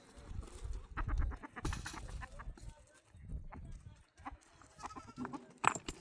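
Livestock in a nomad camp, with a few short calls and scattered knocks and shuffling.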